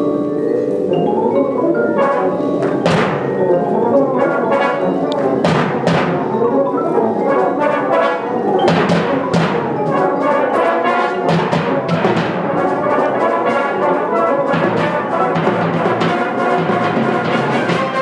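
Brass band playing: cornets, trombones and tubas over percussion, with several sharp percussion hits ringing out through the busy music.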